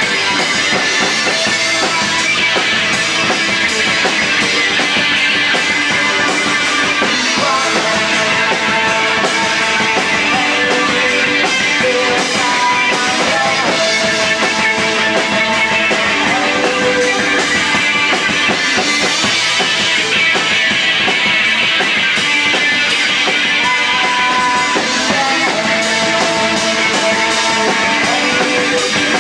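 A live rock band playing: electric guitar and drum kit in a dense, loud, steady wash, with held melodic notes running over it.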